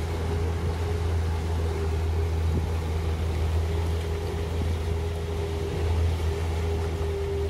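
Boat engine running steadily under way: a constant low drone with a steady higher hum over the rush of water.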